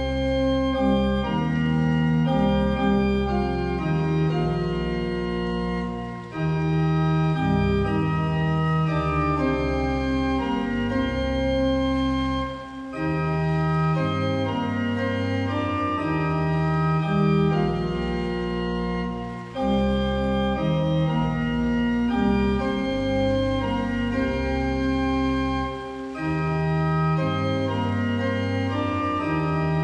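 Organ playing a hymn tune in held chords, the bass and upper parts changing together. The phrases end in short breaths about every six to seven seconds.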